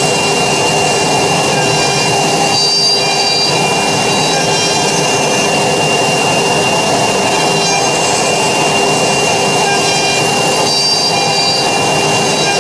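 A 4-axis CNC router's spindle, turned sideways, running with a steady high whine as it drills side holes into the edge of a wooden board.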